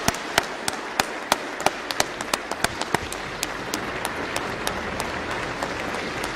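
Applause from a large seated audience: a steady wash of clapping, with sharp, close single hand claps standing out above it.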